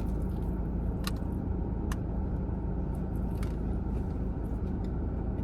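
Chewing a bite of a Takis-coated Korean corn dog, with a few sharp crunches, over the steady low rumble of a running car.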